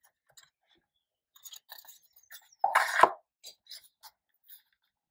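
Hands handling small cardboard product boxes: light taps and rustles, with one louder scrape ending in a knock a little under three seconds in.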